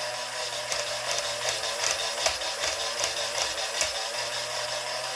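Small battery-operated jigsaw running steadily, its little electric motor humming with a rapid buzz and rattle from the reciprocating blade mechanism.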